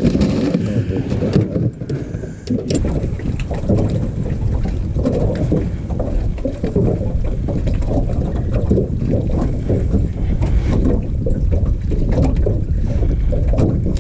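Wind buffeting the microphone: a steady low rumble with constant flutter. In the first couple of seconds there are a few knocks and rustles from hands working in an ice-filled cooler.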